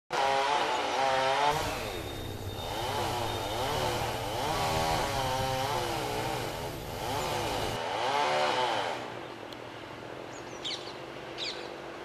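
Chainsaw cutting trees, its engine revving up and down over and over, then dropping away about nine seconds in.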